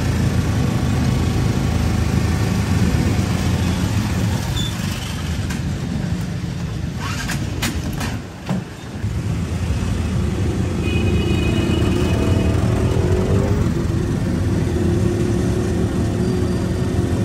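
Auto-rickshaw engine running under the passengers while it drives through traffic, heard from inside the open cabin. The engine dips briefly about eight seconds in, then its note rises a little as it picks up speed.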